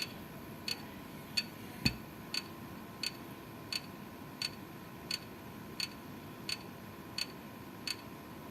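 Computer hard disk drive clicking at a steady rhythm, about one click every 0.7 seconds, over a faint hum, with one louder, deeper knock about two seconds in. The clicking is a symptom of a failing drive, most likely near the end of its life, though a faulty SATA cable or power connection can also cause it.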